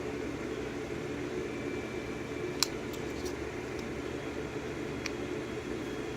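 A few short clicks of a small metal tool against a lock cylinder as a retaining clip is pried at, the sharpest about two and a half seconds in, over a steady background hum.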